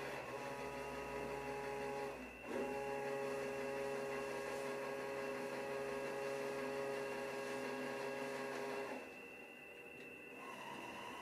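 LEGO Technic electric motors whining as they drive the submarine's propellers. The whine drops out about two seconds in and spins back up with a quick rise in pitch, stops about nine seconds in, and a higher whine starts near the end.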